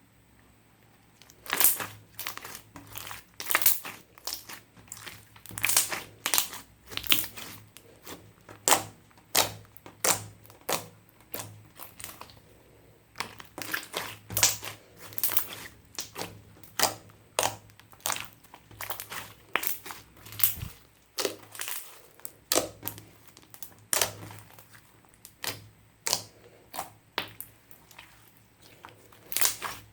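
Clear slime being squeezed and kneaded by hand, trapped air popping out in a run of sharp crackling clicks, one or two a second, starting about a second and a half in.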